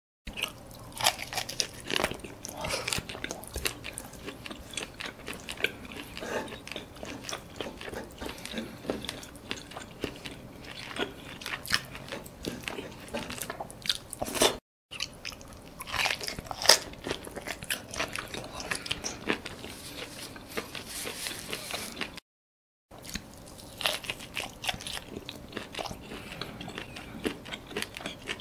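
A person biting and chewing grilled squid close to the microphone: many irregular small wet clicks and smacks. The sound breaks off briefly twice.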